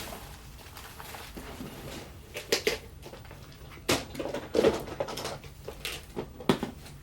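Scattered sharp clicks and knocks of small hard objects being handled, about four strong ones with lighter taps between.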